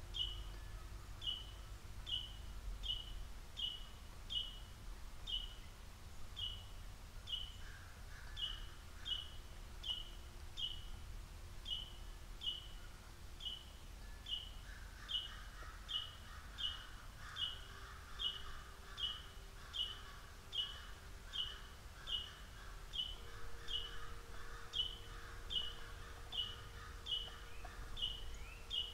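A songbird repeating a short, high chip call a little under twice a second, steady throughout. From about halfway in, a lower, rapid twittering joins it. A low rumble sits underneath.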